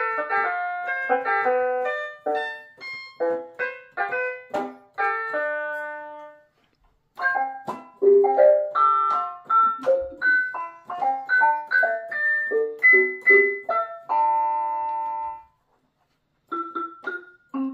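Electronic keyboard playing a quick run of piano-like notes. It pauses briefly about six seconds in, then plays on to a held chord, falls quiet for a moment and starts up again.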